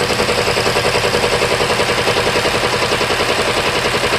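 2022 Toyota Camry engine running at idle with a rapid, even pulsing throb, misfiring because of faulty ignition coils.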